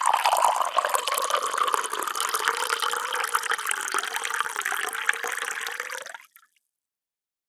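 Water pouring in a steady, splashing stream that stops abruptly about six seconds in, followed by silence.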